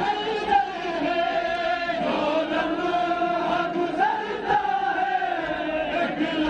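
A large group of men chanting a noha, a Shia mourning lament, together in a drawn-out sung melody.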